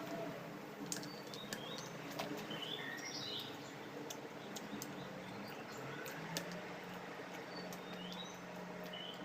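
Small birds chirping in the background, short rising and falling chirps every second or so, over a low steady hum and a few faint clicks.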